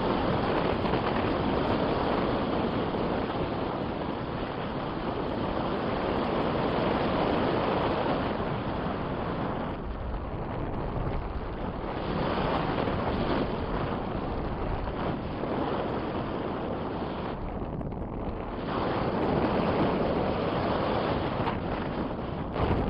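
Strong wind rushing over the microphone of a pilot in flight, a continuous hiss that swells and eases, dropping off briefly twice.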